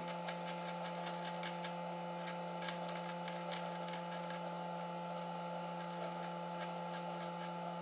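A steady electrical hum made of several even tones, with faint scattered ticks and light rubbing on top of it from the laptop circuit board being washed clean.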